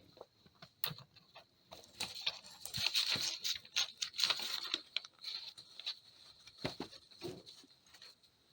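Irregular light scraping and tapping as crushed powder is spooned and packed into a small metal arrow warhead.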